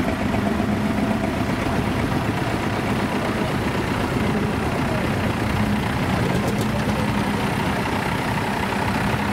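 A heavy engine idling steadily, with an even low hum.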